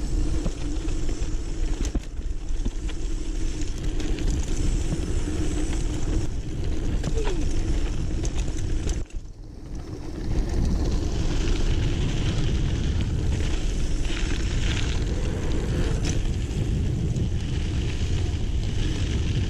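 Mountain bike tyres rumbling and rattling down a dirt trail at speed, with wind rushing over the microphone. The noise dips briefly about nine seconds in, then picks back up.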